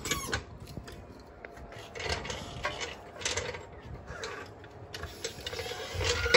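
Metal tools and parts clinking and clattering in irregular clicks, with a sharp metallic clack at the very end.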